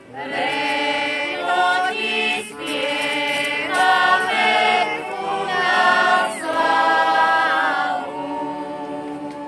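A folk choir of women and men singing a song together outdoors in phrases, starting about half a second in, with short breaths between lines, and trailing off near the end.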